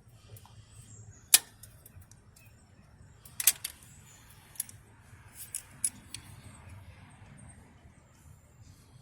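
A few sharp, isolated clicks and taps of hand tools on metal, the loudest about a second and a half in and about three and a half seconds in, while working to extract a rusty broken stud from an engine.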